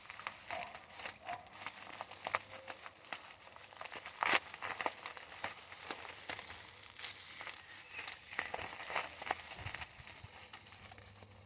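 Packaging being handled and unwrapped by hand: irregular crinkling and crackling throughout.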